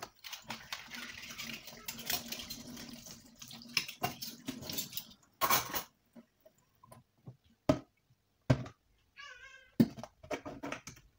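Tap water running into a stainless steel sink for the first few seconds, then several sharp knocks as plastic baby bottles are set down in the sink. A short, high, wavering squeal comes just before the last knock.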